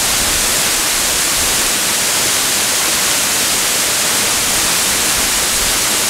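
Waterfall pouring close by: a loud, steady, even rush of falling water.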